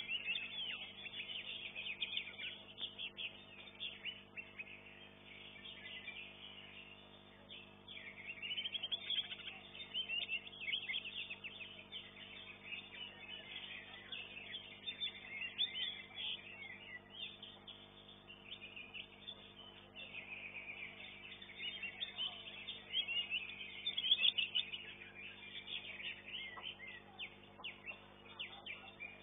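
Cucak hijau (green leafbird) singing: a rapid, varied stream of high chirps and trills in bursts with brief pauses.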